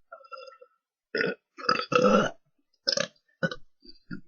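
A person belching in a string of about six short burps after chugging a drink, the longest and loudest about two seconds in.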